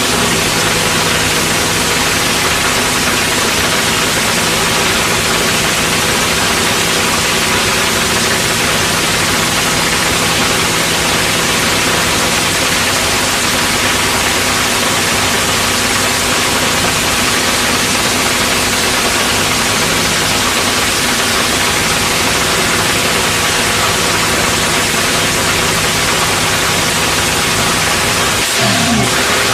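Top fuel dragster's supercharged V8 running steadily at a loud, harsh, even pitch, with a heavy noisy wash over the engine note.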